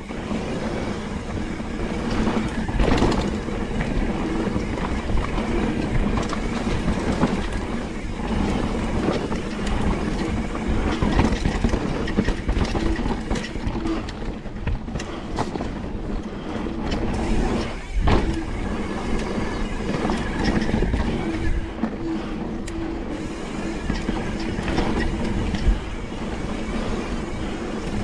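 Specialized Enduro mountain bike ridden fast down a dirt trail: a continuous rumble and rattle of tyres and frame over rough ground, with sharp knocks from bumps, one heavy knock about two-thirds of the way through.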